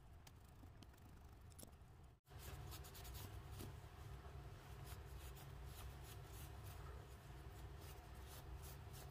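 Near silence with faint clicks and light taps as a scooter's reed valve block and its small metal parts are handled. A low hum comes in about two seconds in.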